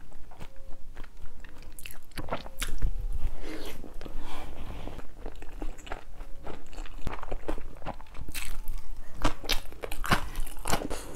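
Close-miked mouth sounds of chewing food, then sharp, repeated crunches in the second half as a slice of danmuji (yellow pickled radish) is bitten and chewed.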